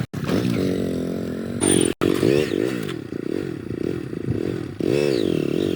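A motor engine revving up and down over and over, its pitch rising and falling in quick sweeps, with a brief cut-out about two seconds in.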